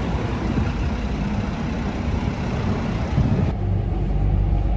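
Road traffic noise on a busy city street. About three and a half seconds in it changes abruptly to the steady low rumble inside a Hong Kong MTR train car.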